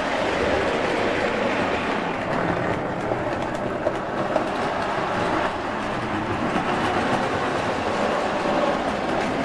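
Lionel O gauge Alco FA diesel pair running on three-rail track, its electric motor and gears humming steadily with the wheels rolling over the rails. Two light clicks come about four seconds in as it passes close by.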